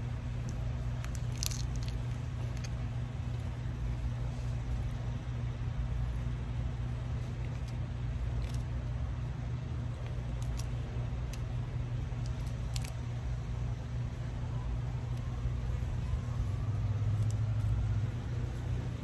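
A steady low machine hum, with scattered small clicks and crunches of grilled shrimp being peeled by hand and eaten.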